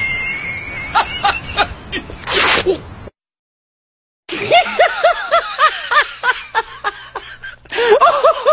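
A man's short non-speech vocal outbursts: brief high-pitched cries and a short hissing burst, then after about a second of silence a fast run of short rising-and-falling cries, several a second.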